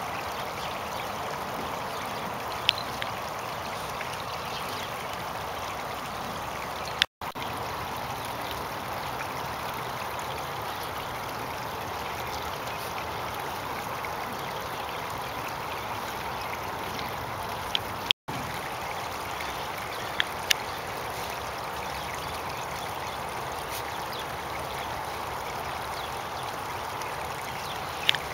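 Steady rush of a small stream flowing, with a few brief sharp clicks scattered through it. The sound cuts out for an instant twice.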